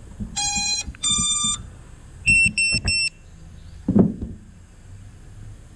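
Geprc Mark 5 FPV quadcopter's motors beeping its power-up tones: two longer tones at different pitches, then three short, higher beeps. A dull thump follows about four seconds in.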